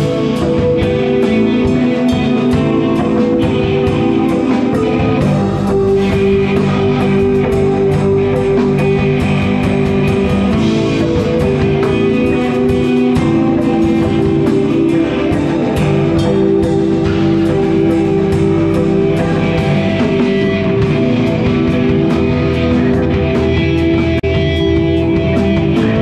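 Live rock band playing: electric guitars over a steady drum-kit beat.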